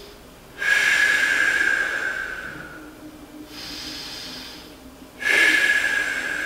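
A man doing slow, paced deep breathing: two long exhales through the mouth, each about two and a half seconds with a faint whistling tone, and a quieter inhale through the nose between them.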